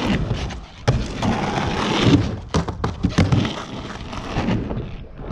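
Skateboard wheels rumbling up a small wooden quarter-pipe ramp and across rough asphalt, with several sharp clacks of the board hitting the ramp.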